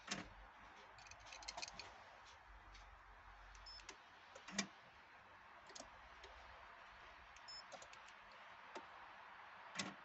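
Scattered sharp clicks against near silence, from a Viper remote-start key fob's buttons being pressed and the car's electrics switching as the remote start powers the ignition. The loudest clicks come just after the start and about halfway through. No engine is running.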